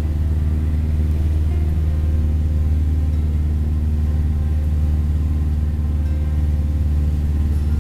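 Cessna Cardinal's single piston engine and propeller running with a steady drone, heard from inside the cockpit.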